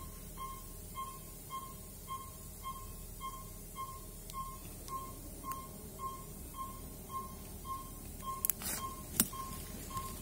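Operating-theatre patient monitor (pulse oximeter) beeping steadily with each heartbeat, a short high beep a little under twice a second. Near the end, a few sharp clicks stand out above it.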